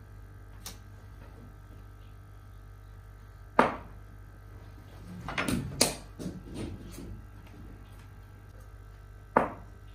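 Sharp knocks from indoor cricket: the hard ball striking the bat and hitting the tiled floor and walls. There is one knock about three and a half seconds in, a quick run of several between five and six seconds, and one more near the end.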